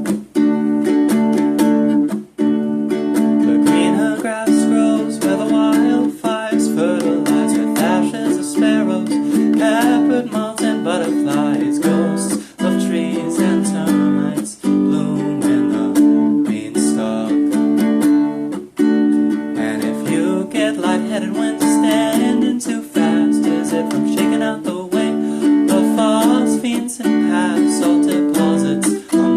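Music: an acoustic string instrument strummed in a steady rhythm of chords, with a wavering higher melody line over it.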